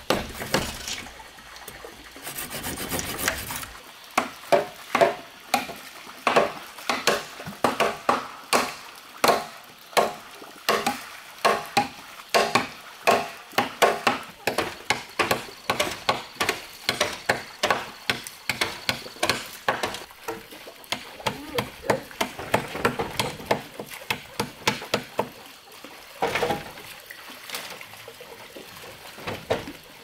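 A long run of sharp knocks, about two to three a second with short pauses, like something being struck repeatedly on wood.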